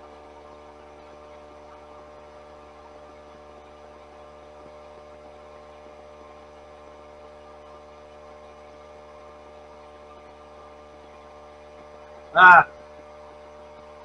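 A steady low hum throughout, and near the end one short, loud squeak that wavers in pitch.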